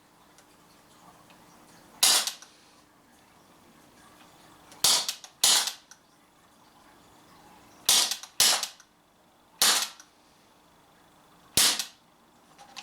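Cybergun FN Herstal M4 CO2 BB gun firing 4.5 mm steel BBs, one shot per trigger pull: seven sharp cracks, irregularly spaced, two of them in quick pairs.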